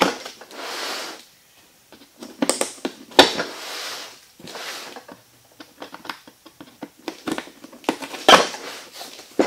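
Needle-nose pliers pulling metal staples out of a cardboard shipping box: short scrapes and tearing of cardboard with scattered sharp clicks, the loudest about three and eight seconds in.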